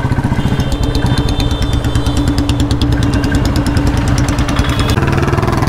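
A 2016 Royal Enfield Bullet's single-cylinder engine running at low road speed, a steady, even thump of exhaust pulses heard from the rider's seat through its 'mini Punjab' aftermarket exhaust.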